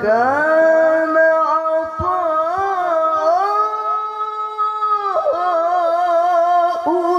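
A man's voice in melodic Qur'an recitation (tilawah), drawing out one long ornamented phrase. It glides up at the start, winds through turns, holds one long steady note, dips about five seconds in, then carries on with more turns.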